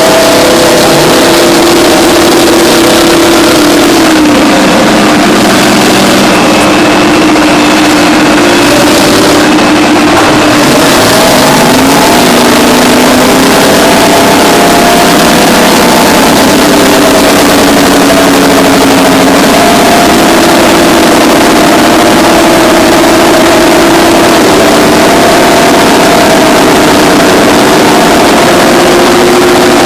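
Loud heavy diesel engine sound: the twin Detroit Diesel 6-71N two-stroke engines of a Terex 82-80 bulldozer working under load, with several engine tones rising and falling as the load changes.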